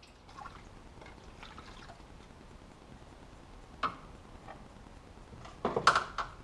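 Quiet handling noises of tools and parts in a car's engine bay while the thermostat housing is being taken off: faint ticks, a single sharp click about four seconds in, then a short cluster of louder clicks and knocks near the end.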